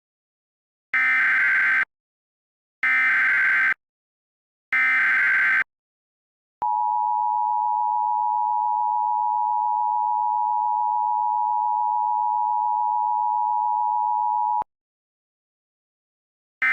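Emergency Alert System signal: three short bursts of SAME header data screech, about a second each, followed by the steady two-tone EAS attention signal held for about eight seconds. Another short data burst begins right at the end.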